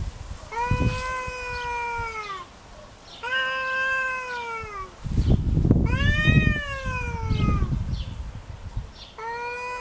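Domestic cats in a territorial standoff, yowling in four long, drawn-out wails, each rising then falling in pitch. A low rumbling noise runs under the third wail.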